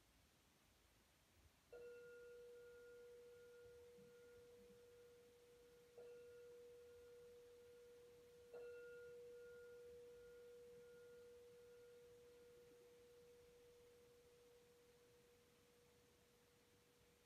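Singing bowl struck three times with a mallet, the strikes about four and then two and a half seconds apart. Each strike renews one steady ringing tone with a higher, wavering overtone, and the ring slowly fades away.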